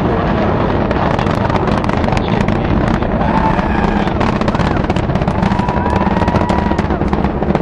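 Space Shuttle Atlantis's launch heard from miles away: a loud, steady rumbling roar from its solid rocket boosters and main engines, thick with rapid crackling.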